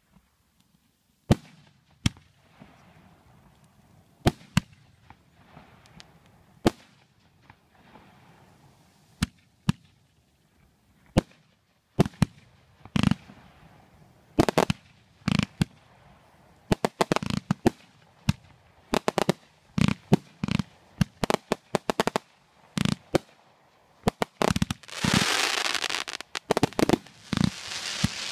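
Aerial fireworks going off with sharp bangs, one every second or two at first, then coming thick and fast from about halfway. Near the end a burst of glittering stars gives a few seconds of dense hissing crackle.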